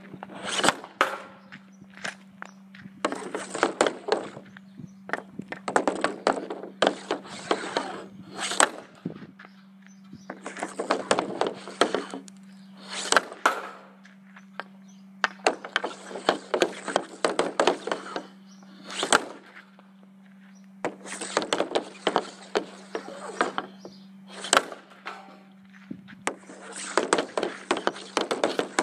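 Hockey stick blade and pucks on concrete: repeated bouts of stickhandling, the blade scraping and the puck sliding on the pad, each bout broken by a sharp crack as a shot is taken, about ten times. A faint steady hum runs underneath.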